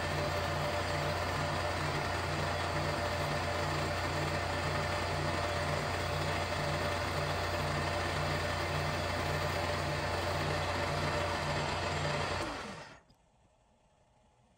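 Milling machine running with a 1/8-inch four-flute high-speed steel end mill cutting a keyway into a steel Acme-threaded screw: a steady hum with a low pulse about twice a second. The sound dies away near the end.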